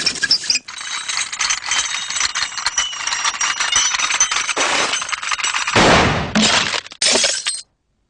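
Cartoon slapstick sound effects: a dense, continuous clatter and crash with clinking and breaking sounds. A louder crash comes about six seconds in, and the sound cuts off suddenly shortly before the end.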